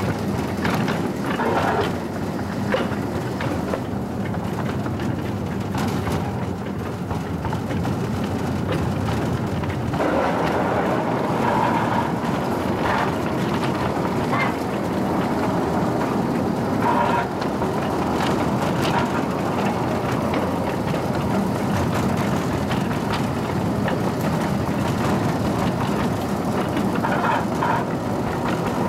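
Home-built, wood-fired Shay steam locomotive and its passenger car running on 12-inch gauge track, heard from aboard the train: steady running noise that grows louder about ten seconds in, with a few brief higher-pitched sounds.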